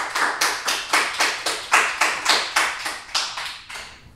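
Hands clapping in a quick, even run of about four claps a second, fading out near the end.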